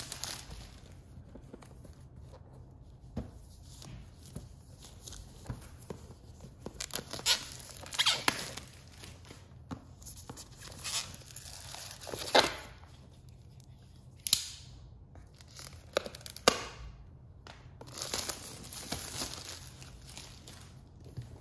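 Keyboard's cardboard box and packaging being opened and handled: intermittent tearing and crinkling with scattered sharp knocks, coming and going unevenly.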